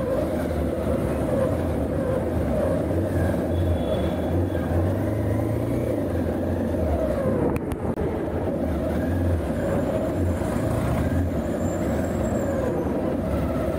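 Street traffic: motorcycle, scooter and car engines running and passing close by, a steady continuous noise with a brief dropout a little over halfway through.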